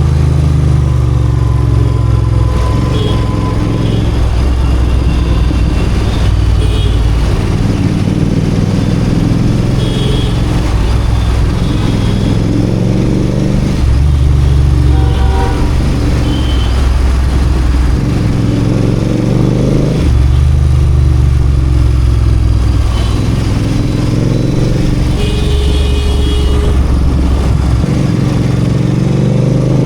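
Royal Enfield Continental GT 650's 648 cc parallel-twin engine, ridden in traffic, accelerating and easing off again and again, its pitch rising with each pull and dropping at the gear changes. Short vehicle horn toots sound here and there.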